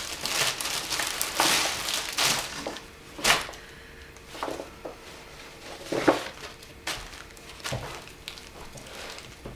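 Clear plastic garment bag crinkling as a dress is pulled out of it, in dense rustling for the first three seconds, then sparser rustles and a few sharp crackles as the fabric and wrapping are handled.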